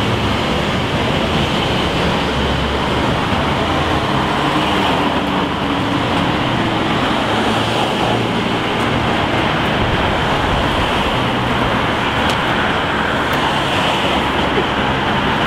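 Steady street traffic noise, an even rush of passing cars with no break.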